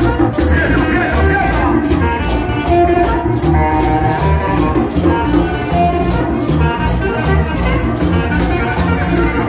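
Upbeat Latin dance music with a steady percussion beat and bass.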